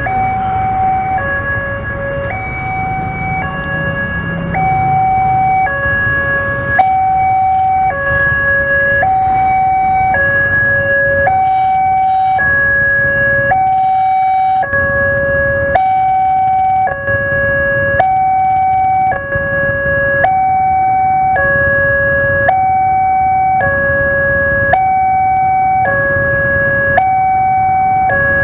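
Railway level-crossing warning alarm sounding a repeating two-tone electronic signal, a higher and a lower tone alternating about once a second, over idling traffic. It is the signal that the crossing barriers are closed for a train.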